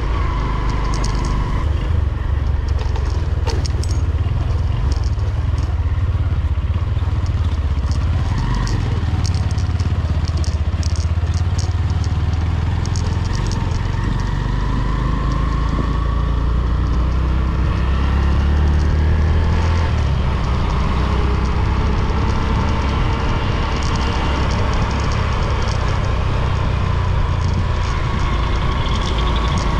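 Motorcycle running steadily along a road under a heavy low rumble, its engine note drifting up and down, with scattered light clattering.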